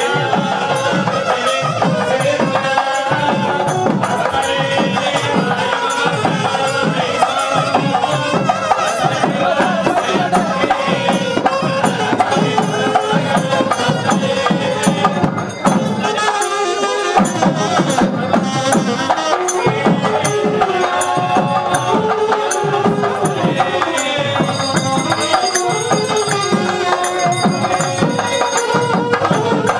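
Traditional Indian devotional music: steady percussion under a melody, with a brief break about halfway through.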